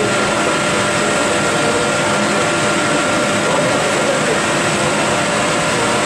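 HQ-J10 biomass sawdust burner firing a steam boiler, running with a steady, loud rushing noise and a few faint steady tones over it.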